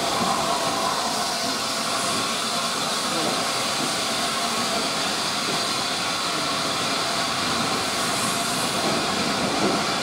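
Steady hiss of steam from the A1 Pacific steam locomotive 60163 Tornado standing at the platform.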